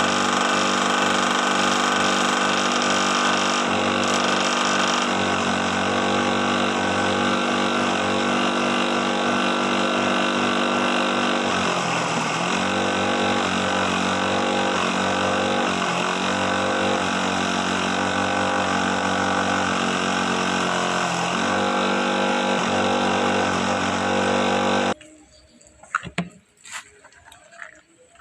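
Makeshift feed-chopping machine running loud and steady, its pitch dipping briefly a few times midway. It cuts off suddenly near the end, leaving a few faint knocks.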